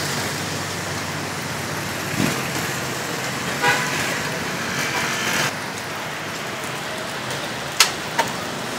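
Roadside traffic noise as a steady hiss, with a short toot about four seconds in. Near the end come two sharp clicks, metal tongs on a grill rack.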